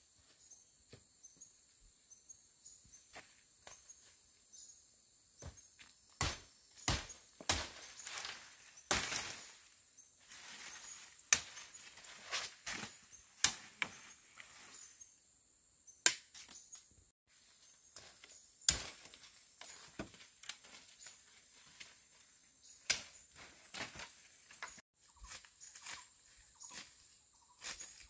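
Irregular sharp knocks and taps, spaced a second or more apart, from hands-on work with tools or materials. A faint steady high whine sits behind them.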